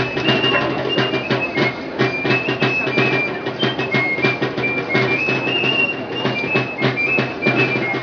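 Live Basque folk dance music: a high flute melody stepping between notes over a steady low drone, with many sharp, quick percussive strikes.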